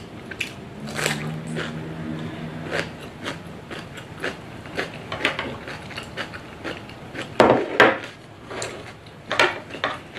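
Eating at the table: chopsticks clicking and tapping against a small ceramic bowl, with chewing. It is a steady run of short clicks, with a few louder ones about two-thirds of the way in.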